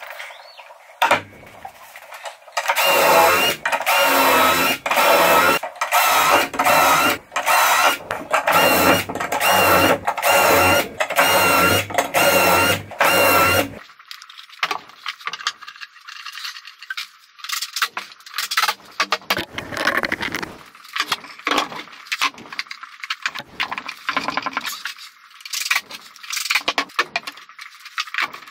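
Cordless drill boring pocket holes through a pocket-hole jig, its motor whining in a dozen or so short runs that start and stop. From about halfway through, only quieter scattered clicks and taps of handling parts and tools.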